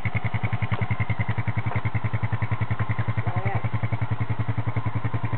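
Honda FourTrax quad's engine running steadily at low revs with an even, rapid putter, held at a gentle throttle while the bogged-down quad is eased out of a mud rut.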